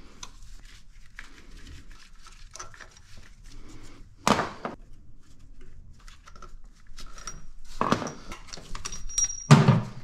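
Wrench working the 8 mm mounting bolts of a car's power steering pump: faint irregular metal clicks and clinks, with a sharp knock about four seconds in and louder knocks and rustling near the end.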